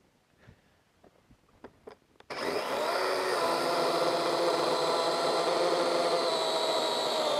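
A few light clicks, then about two seconds in the DeWalt XR brushless cordless electric chainsaw starts abruptly. Its motor spins up to a steady high whine and holds it as the chain cuts down into a log slab.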